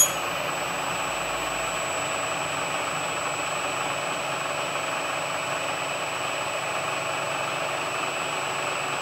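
Shell mill face-milling aluminium plate on a CNC milling machine, spindle at about 1300 rpm, fed slowly into the cut. It makes a steady cutting hiss and hum with a faint high whine. One sharp click comes right at the start.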